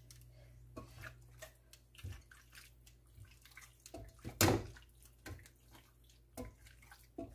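Metal tongs handling raw chicken pieces in a stainless steel bowl: soft wet squelches and scattered light clicks, with one louder knock about four seconds in. A low steady hum runs underneath.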